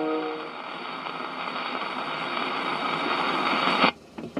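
Surface hiss and crackle of a 78 rpm shellac record playing on an HMV 102 acoustic gramophone, heard through its metal horn. The last sung baritone note fades out in the first half-second. The hiss runs on steadily, then cuts off suddenly about four seconds in, followed by a few light clicks.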